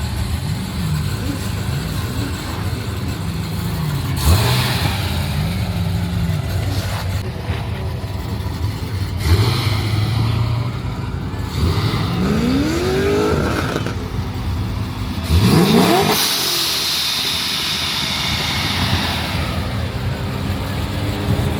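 Car engines idling, with several revs that rise and fall in pitch: short ones about 4 and 9 seconds in, a longer climb around 12 to 13 seconds, and the loudest, sharpest rev at about 16 seconds, followed by a hissing rush for a few seconds.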